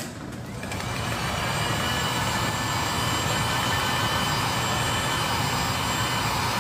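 Handheld heat gun blowing hot air onto a phone to soften the screen adhesive. It spins up over the first second or so into a steady rushing blow with a faint whine.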